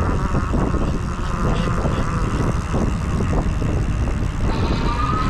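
Wind buffeting the microphone and road noise from an e-bike riding along, a steady low rumble. Near the end a thin whine sets in and rises slowly in pitch.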